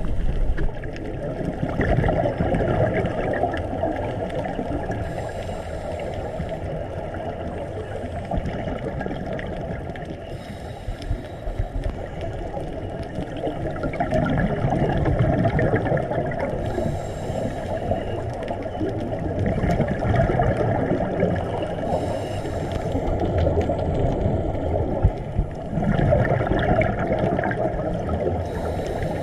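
Underwater sound on a scuba diver's camera: steady water noise, with the diver's exhaled regulator bubbles rising in short bursts every few seconds.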